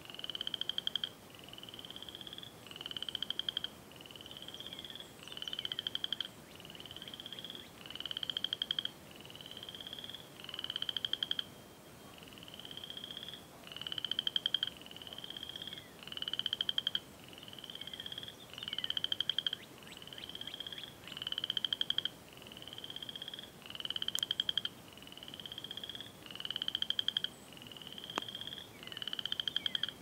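Frogs calling in a steady chorus: short high trills about one a second, alternating between a smoother call and a louder, rasping pulsed one that swells as it goes.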